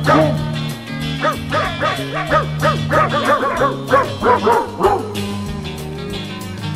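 Three-week-old border collie puppies yipping and whimpering in quick squeaks that rise and fall in pitch, several a second, over background music. The puppy calls stop about five seconds in, leaving only the music.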